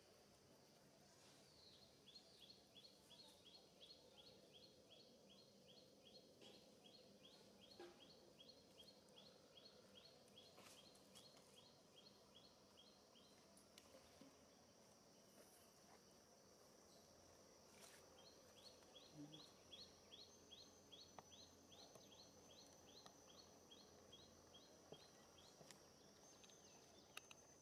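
Faint natural ambience: a rapid chirping call, about four chirps a second, runs in two long bouts over a thin, steady high tone.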